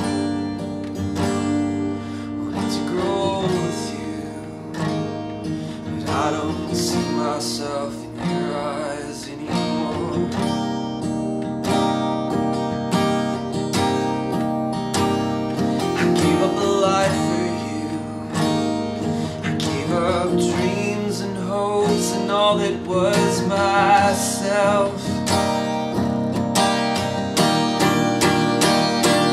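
Acoustic guitar picked and strummed, with a man's voice singing over the later part.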